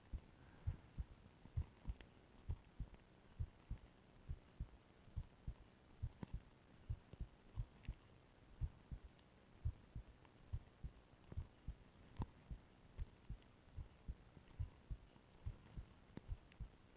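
A human heartbeat heard through a stethoscope: a steady rhythm of low double thumps (lub-dub), roughly one beat a second.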